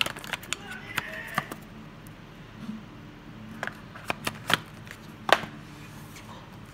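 Cardboard smartphone box and its paper insert being handled: irregular sharp clicks and taps as the white charger and cable are lifted out, with the loudest knock about five seconds in.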